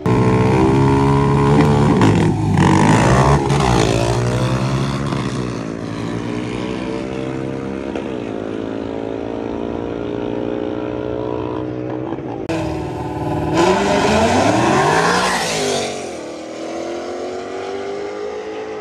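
High-horsepower donk drag cars running wide-open down the strip, starting suddenly and loud, with the engine note climbing and dropping through gear changes. A second loud surge of engine noise with rising and falling pitch comes about twelve seconds in.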